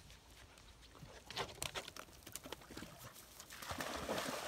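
A dog splashing as it swims in pond water: scattered small splashes and paddling sounds, then a louder rush of splashing about three and a half seconds in.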